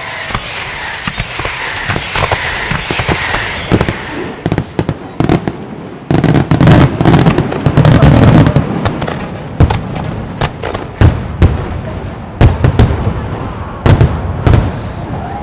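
Fireworks display. Ground fountains hiss steadily at first. From about six seconds in comes a rapid run of aerial shell bursts with heavy low booms, followed by scattered single bangs.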